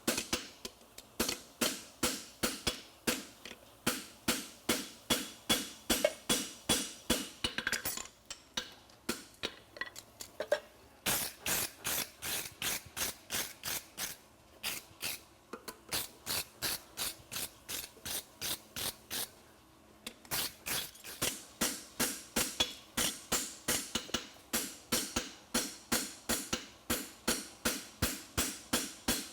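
Farrier's hammer striking a steel horseshoe on an anvil, flattening the shoe. Steady ringing metallic blows, about two or three a second, with one brief pause about two-thirds of the way through.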